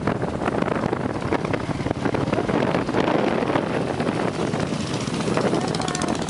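Wind rushing and buffeting over the microphone on a moving motorcycle, with the engine running underneath in a steady, loud wash of noise.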